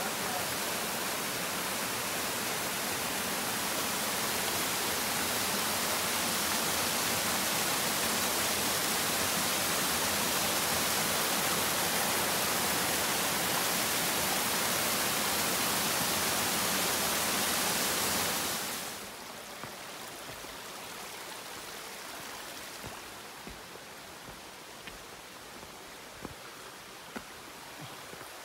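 Steady rush of a mountain stream's water. About two-thirds of the way through it drops suddenly to a softer rush, with a few faint clicks near the end.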